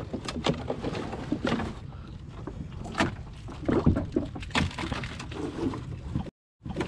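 Pond water splashing and sloshing in irregular bursts as people wade and grab for fish, with a few louder splashes around the middle. The sound cuts out briefly near the end.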